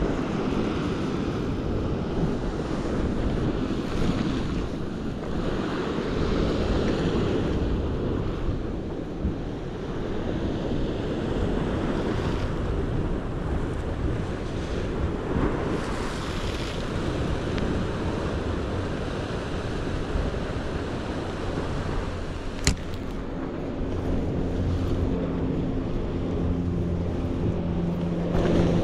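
Wind buffeting the microphone over sea surf washing against the rocks, rising and falling in gusts. A single sharp click comes about three-quarters of the way through, and a low steady hum comes in near the end.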